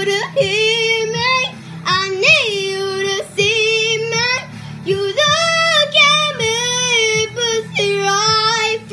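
A young girl singing solo, in long held notes that waver and slide in pitch, in phrases with short breaks between them.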